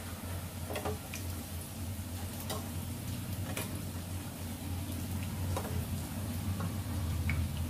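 Litti deep-frying in hot ghee in a kadai: steady sizzling, with scattered light clicks as a perforated slotted spoon moves and turns them in the pan, over a low steady hum.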